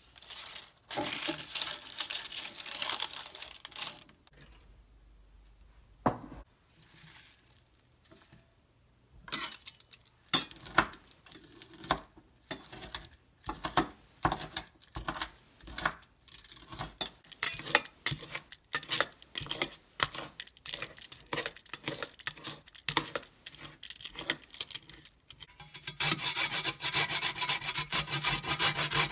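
Kitchen prep sounds in sequence. First, baking paper rustles as it is handled. Then comes a long run of crisp cuts, about two a second, as spinach leaves are cut in a bowl, and near the end a carrot is grated on a metal grater with a steady rasping.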